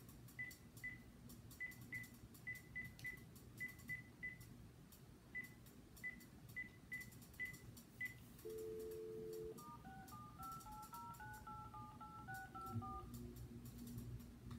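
Phone handset keypad beeping at each key press as a number is keyed in, some twenty short beeps over about eight seconds. Then comes a brief dial tone of about a second, followed by a quick run of touch-tone (DTMF) digits as the phone dials out.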